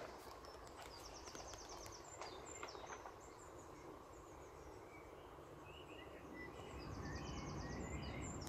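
Faint songbirds singing: two rapid high trills and scattered short chirps over a low, steady background rumble.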